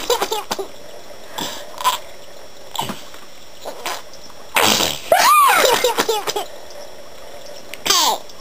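An adult sneezing loudly about halfway through, followed straight away by a baby's high, rising-and-falling squealing laugh. A shorter burst comes near the end.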